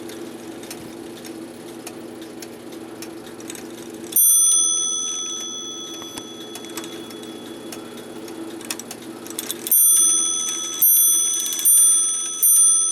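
OG clock movement's strike train running with a steady whirr, its hammer striking and ringing once about four seconds in. From near the end it strikes roughly once a second, each blow ringing and fading. This is the strike side that works only sometimes, which the repairer suspects is caused by a bent pivot.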